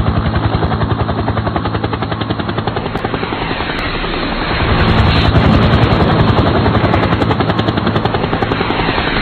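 Helicopter rotor chopping with a rapid, even beat, growing louder about five seconds in.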